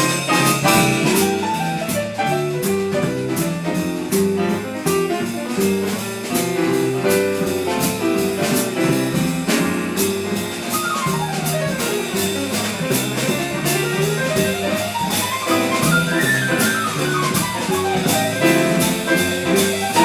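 Live small-group jazz played without vocals: a drum kit keeps steady time on cymbals under a bass line. Quick runs of notes sweep down and back up about halfway through.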